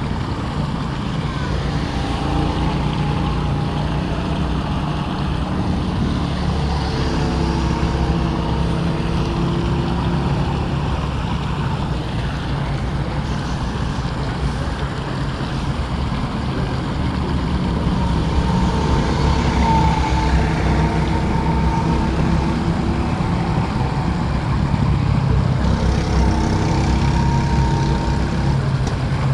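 Motor vehicle engines running steadily, their pitch rising and falling now and then, over the rush of a small stream's cascade.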